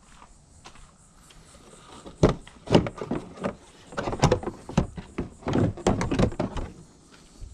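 Plastic body panel of a Honda Rancher ATV being worked loose by hand: a quick run of knocks, clicks and clattering plastic that starts about two seconds in and lasts about four seconds.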